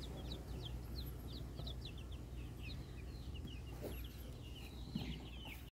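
A brood of chicks peeping: many short, high cheeps that slide down in pitch, several a second, faint over a low steady hum. The sound cuts off abruptly near the end.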